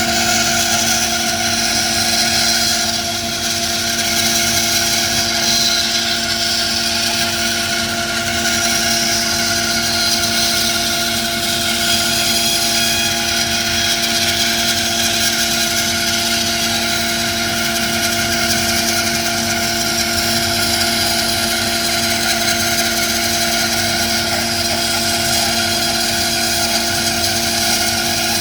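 Charnwood Cobra C14BX 14-inch bandsaw running steadily, its 1800 W induction motor and blade giving a hum of several steady tones under a hiss that swells and fades.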